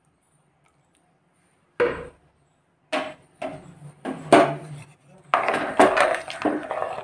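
Metal spoon knocking and scraping against the inside of a pressure cooker pot while stirring boiling water with onions, garlic and tomato: a few separate knocks, then a quicker run of knocks in the last two seconds.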